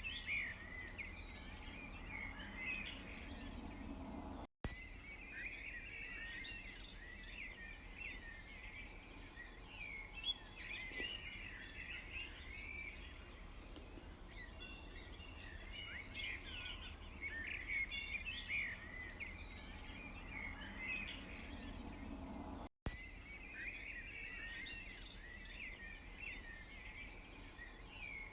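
A chorus of many small birds chirping and twittering without pause, over a faint low steady background hum. The sound cuts out completely for an instant twice, about five seconds in and again near twenty-three seconds.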